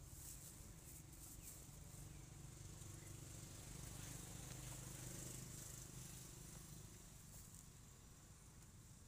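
Faint outdoor ambience: a steady, high-pitched insect drone over a low hum that grows a little louder around the middle.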